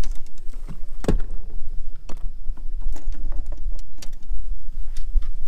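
Clicks and knocks of someone moving about and handling gear on a bass boat's deck, over a steady low rumble, with one louder knock about a second in.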